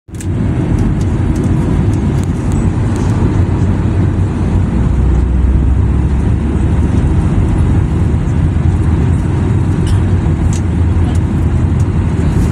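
Steady low roar of a jet airliner cabin in flight: engine and airflow noise heard from a window seat beside the wing-mounted turbofan engine.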